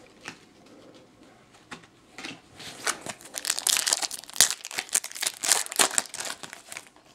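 Foil trading-card pack wrapper being torn open and crinkled in the hands: a few faint clicks at first, then dense crinkling and tearing from about halfway through until just before the end.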